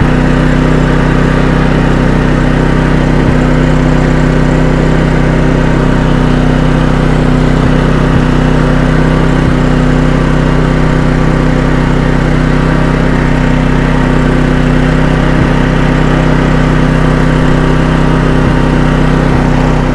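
Firman WH03242 dual-fuel inverter generator running steadily on gasoline, with eco mode off and no load drawn yet: a constant, even engine hum that holds the same pitch throughout.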